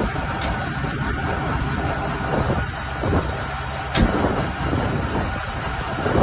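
Heavy diesel engine of an earthmoving machine running loud and rough just after a cold start, with a sharp bang about four seconds in.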